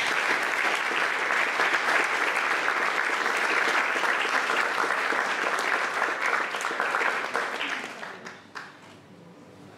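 Audience applauding steadily, then tapering off about eight seconds in, with a last stray clap.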